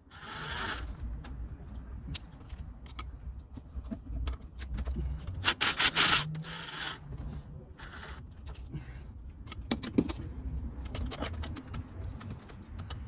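Metal hand tools and small bolts clinking and rattling in irregular clusters while the top of an engine is taken apart. The loudest run of rattles comes a little past the middle, with a single sharp clink near the end.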